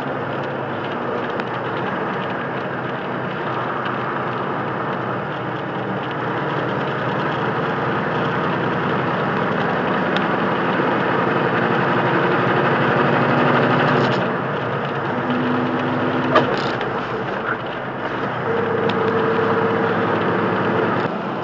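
Semi truck's diesel engine and tyre road noise heard from inside the cab at highway speed, a steady hum whose engine tone changes a couple of times. A single sharp click near the three-quarter mark.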